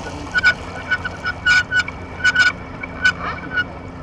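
A flock of geese honking: many short calls in quick, irregular succession over a steady low rush of wind and water.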